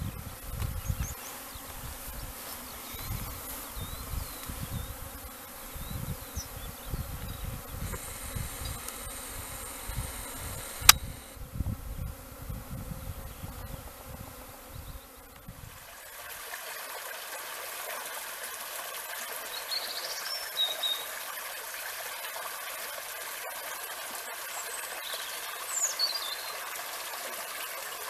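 Honeybees buzzing around a row of hives, with wind gusting on the microphone and one sharp click about halfway. Then the sound changes abruptly to a shallow stream trickling over stones, with a few short bird chirps.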